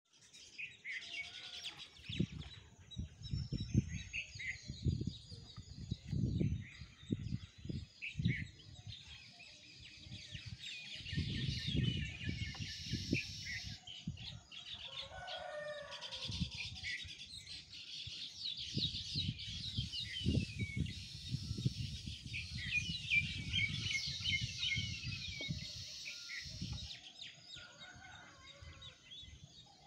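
Many small birds chirping steadily, with irregular low rumbles of wind on the microphone. About halfway through, a rooster crows once, faintly.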